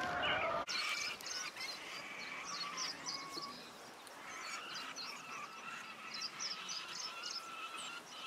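Rural outdoor ambience: many birds singing in short, high chirps over a steady trilling call. In the first second a louder honking call cuts off abruptly.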